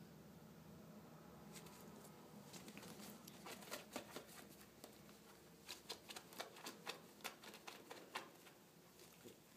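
Faint rustling and irregular light clicks of a cat wrestling and kicking a green toy on carpet, the clicks thickest from a few seconds in until shortly before the end.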